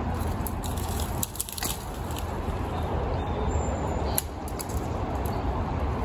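Steady rush of a shallow forest creek mixed with wind buffeting the microphone. Scattered sharp cracks and snaps come through as a dead branch and twigs are handled.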